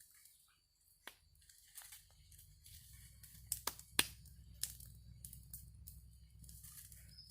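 Oysters grilling over an open fire, with scattered crackles and sharp pops over a low rumble; the fire is hot, which the cook calls too much fire.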